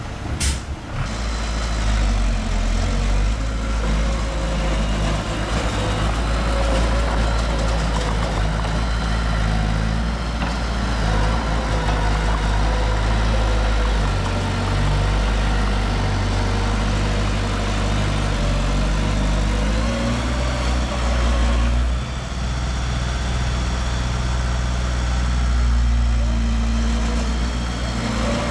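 Heavy diesel engine of construction machinery running steadily at low revs, a deep hum with several tones. A short sharp sound comes just after the start, and the engine note shifts about three quarters of the way through.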